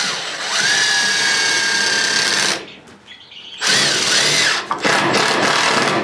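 Cordless drill driving screws through a metal latch into a wooden beam, in two runs: a steady whine for about two seconds, a pause, then a second run with the pitch wavering as the motor speed changes.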